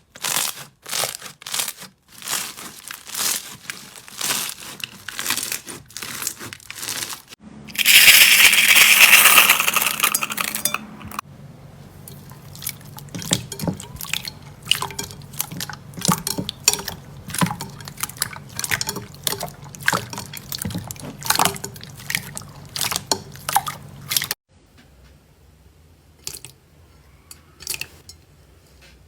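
Slime being squished, pressed and stretched by hand, giving wet, sticky pops and crackles. A loud rushing crackle lasts about three seconds, about a third of the way in.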